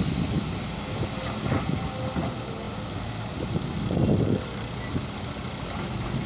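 Diesel engine of a JCB backhoe loader running steadily, with a louder, rougher swell about four seconds in.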